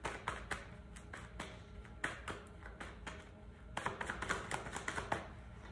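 Tarot cards being shuffled by hand: a run of soft card taps and flicks, coming thicker and faster about four seconds in.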